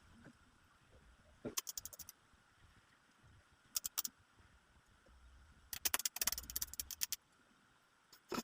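Three short bursts of quick, light clicking and rattling, like small hard objects being handled, with near silence between them; the last and longest burst comes just under halfway through.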